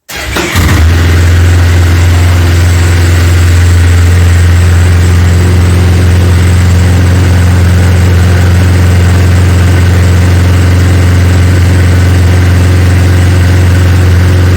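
Yamaha Phazer snowmobile's four-stroke parallel-twin engine starting and catching within the first second, then idling at a steady, unchanging speed.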